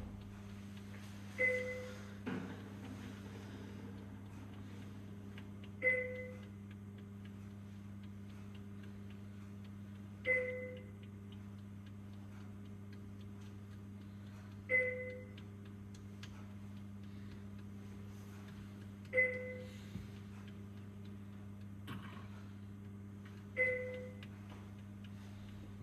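Hospital equipment alarm chiming six times, about once every four and a half seconds: each is a short two-tone beep that fades quickly. A steady low hum runs underneath.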